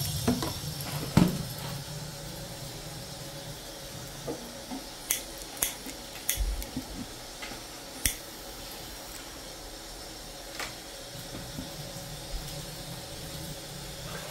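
Kitchen clatter: scattered clinks and knocks of pots, bowls and utensils being handled, about eight in all and the loudest about a second in, over a steady hiss.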